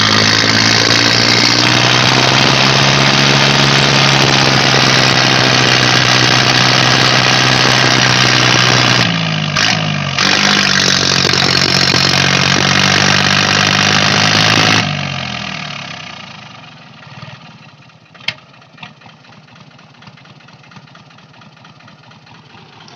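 Diesel tractor engines running hard at high revs under heavy load, straining to free a tractor bogged in mud. The revs dip briefly about nine seconds in and pick up again, then the engines are throttled back about fifteen seconds in. A single sharp click comes near the end.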